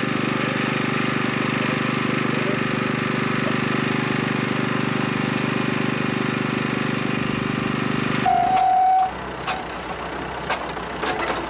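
Engine of working machinery running steadily, cut off abruptly about eight seconds in. A short steady beep follows, then a quieter stretch with a few clicks.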